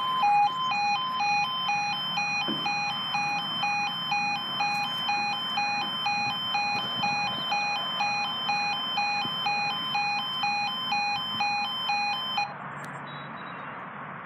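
Railway level crossing warning alarm: an electronic two-tone yodel alternating evenly between two pitches, warning that a train is approaching as the barriers lower. It cuts off suddenly about twelve seconds in, leaving only faint steady background noise.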